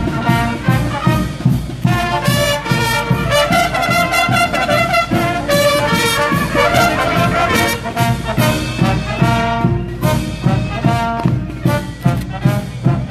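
Cadet military band with bugles playing a march: brass bugle melody over a steady drum beat.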